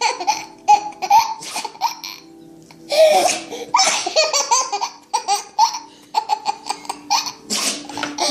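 A young child laughing in repeated high-pitched bursts of giggles, breaking off for about a second partway through before laughing again.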